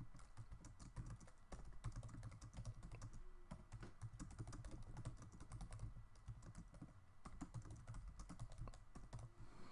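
Typing on a computer keyboard: a fast, irregular run of faint keystrokes.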